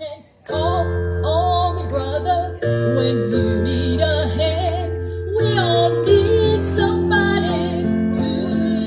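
A woman singing live with electronic keyboard accompaniment, amplified through PA speakers: a wavering sung melody over held chords and a deep bass note that change every few seconds. The music comes in after a short pause just as it begins.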